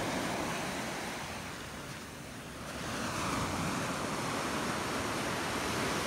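Small sea waves washing up on a pebbly beach, a steady wash of surf that dips and then swells again about halfway through as a new wave comes in.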